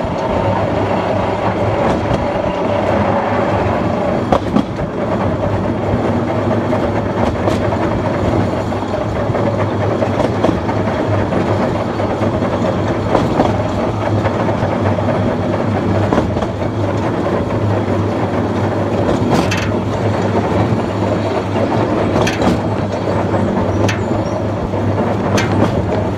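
Narrow-gauge mine railway locomotive running light along the track, with a steady low hum and a few sharp clicks from the wheels on the rails; a higher whine fades out about four seconds in.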